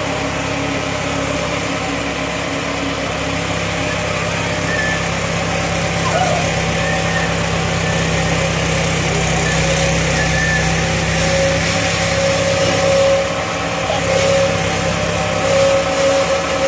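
Mahindra Arjun 555 tractor's diesel engine running steadily under heavy load while hitched to a loaded trolley, its front wheels reared off the ground; it grows a little louder about six seconds in.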